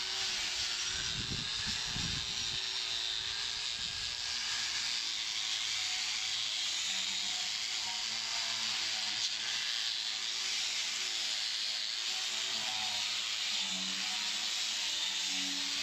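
Angle grinder running steadily with a red abrasive disc pressed against a painted metal door, grinding off the old paint.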